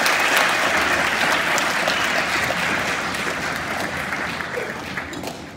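Theatre audience applauding, the clapping gradually dying away toward the end.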